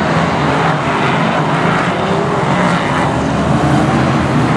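Several BriSCA F1 stock cars' V8 engines racing at full throttle, a loud continuous drone, with engine pitch rising and falling as the cars come through the bend.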